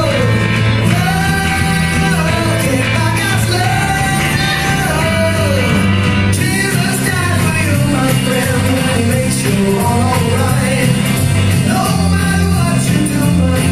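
A song playing, with sung vocals over a steady bass line, as the backing track for a puppet performance.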